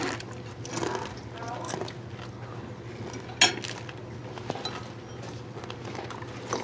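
Faint murmured voices and light clatter of dishes and cutlery, with one sharp clink about three and a half seconds in, over a steady low hum.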